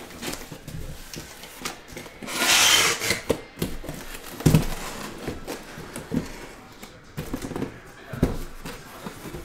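Cardboard shipping case being opened by hand: a loud rasp of cardboard and packing tape a little over two seconds in, a sharp knock about four and a half seconds in, and smaller knocks and rustles as the shrink-wrapped card boxes inside are slid out and set down.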